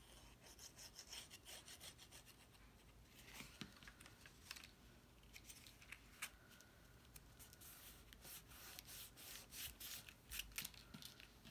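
Faint rubbing and rustling of hands pressing and smoothing cardstock as a freshly glued paper card is pressed shut, with a few small clicks.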